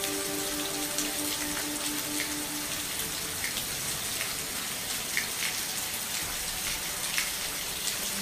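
Steady rainfall hiss with scattered, distinct drops landing close by. A low pulsing hum is heard for the first couple of seconds, then stops.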